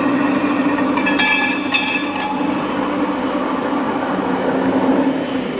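CNC pipe cutting machine running with a steady, loud mechanical hum while working a steel pipe, with brief high-pitched metallic squeals about one to two seconds in.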